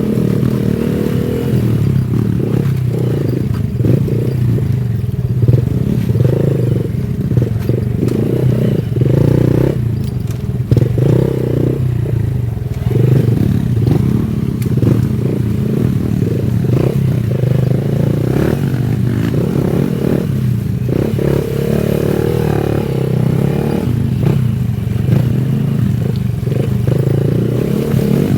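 Honda Wave 110i's small single-cylinder four-stroke engine running on the move, its note wavering unevenly, with irregular knocks and rattles over it.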